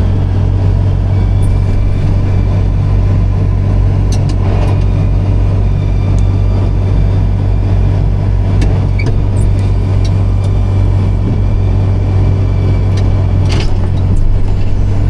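Tractor engine running steadily under load, driving a silage blower that is filling a silo. It is a loud, even low hum with a fast pulse and a few faint clicks.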